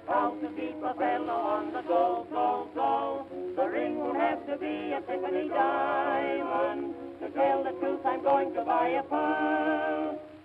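Music: a vocal group singing a popular song on an early phonograph record.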